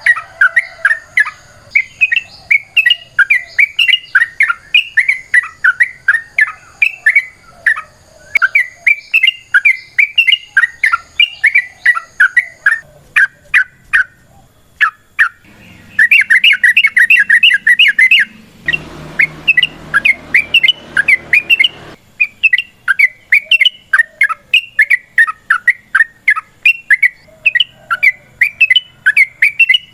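Yellow-vented bulbul (trucukan) calling in long rapid runs of short chattering notes, with a denser, louder run about two-thirds of the way through and a stretch of hiss under the calls just after it.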